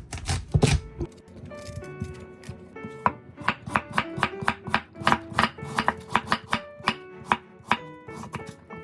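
Kitchen knife chopping on a cutting board, sharp strokes about two to three a second, over light background music with a plucked-string melody.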